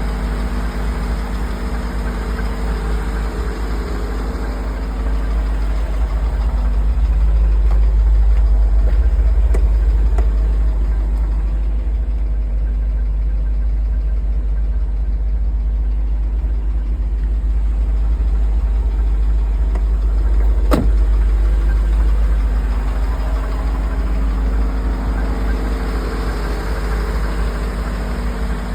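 Car engine idling steadily with a knock from the bottom end, which the owner takes for rod knock. A single sharp click sounds about two-thirds of the way through.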